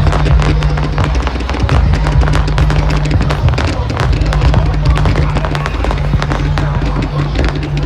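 Fireworks display: shells bursting and crackling in rapid, dense succession, with loud music and its steady bass underneath.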